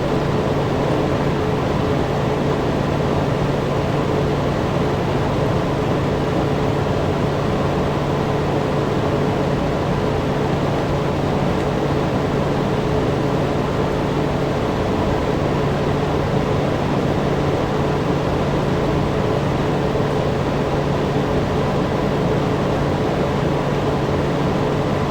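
Electric fan running steadily: a constant rush of moving air with a low motor hum and a fainter higher tone under it.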